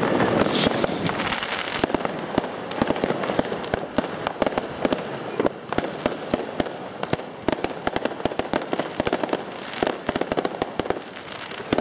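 Firework cake firing fans of gold crackling comets: a dense, irregular run of sharp crackling pops over a rushing hiss, which is strongest in the first two seconds and swells again briefly near the end.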